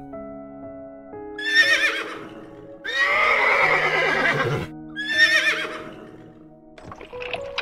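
A horse whinnying three times, the middle whinny the longest, with wavering, quavering calls. Soft background music with long held notes plays underneath.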